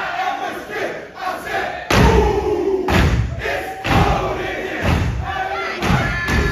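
Step team stomping on a stage in unison: heavy thuds about once a second, starting about two seconds in, with a crowd yelling and cheering.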